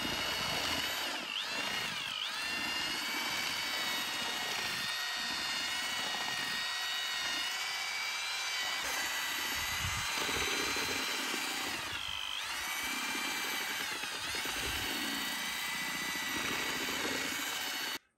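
Electric drill-mixer with a paddle running steadily, stirring mortar in a plastic bucket; its whine dips in pitch a few times as the paddle meets the thick mix, then cuts off just before the end.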